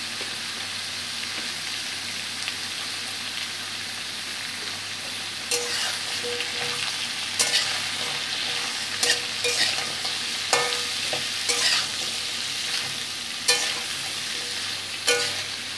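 Potato and pumpkin chunks sizzling steadily as they fry in a metal kadai. From about halfway in, a metal spatula stirs them, knocking and scraping against the pan several times, some knocks ringing briefly.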